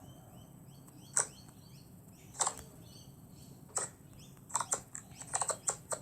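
Slime being squeezed and stretched in the hands, giving sharp pops and clicks of trapped air: three pops spaced over a few seconds, then a quick run of pops near the end.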